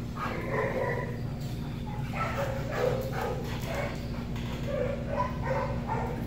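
A dog giving short, high-pitched whines and yips, many in a row, over a steady low hum.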